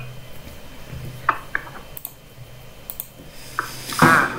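A few scattered, sharp clicks at a laptop's keyboard and touchpad, with a short burst of a man's voice near the end.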